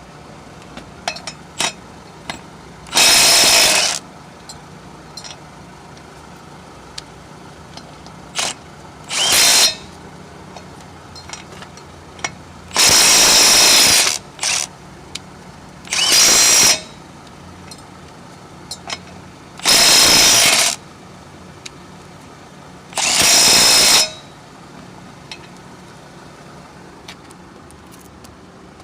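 Milwaukee M12 Fuel Stubby 1/2-inch cordless impact wrench hammering in six short bursts of about a second each, taking lug nuts off a wheel. Small clicks and clinks come between the bursts.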